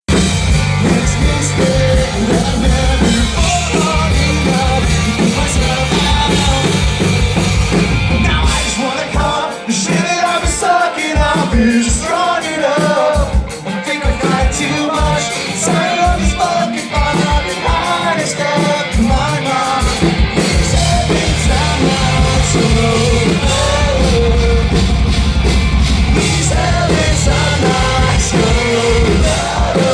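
A rock band playing live and loud, with singing. About eight seconds in the deep bass drops out, leaving the higher instruments and voice for a stretch, and the full band comes back in around twenty seconds.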